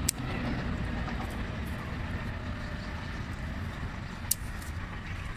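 Steady low rumble of city traffic from the street below. Small scissors snip a tomato stem with a sharp click right at the start, and another sharp click comes about four seconds in.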